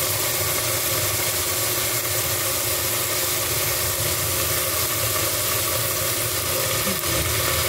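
Chicken pieces and chopped onions frying in oil in a nonstick pan, an even sizzle over a steady low mechanical hum.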